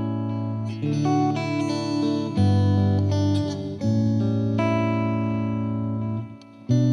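Background music: held chords that change every second or so, with a brief break near the end.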